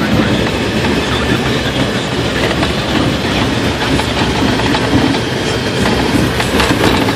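A vehicle driving on a snow-covered road, with a steady, dense rumble of engine and tyres.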